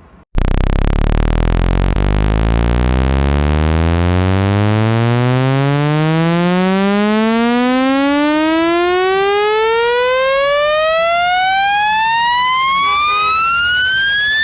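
Synthetic speaker-cleaning tone: one loud, buzzy tone with many overtones starting about a third of a second in and sweeping steadily upward in pitch from a deep hum to a high whine. It is played through a phone's loudspeaker at full volume to shake dust out of it.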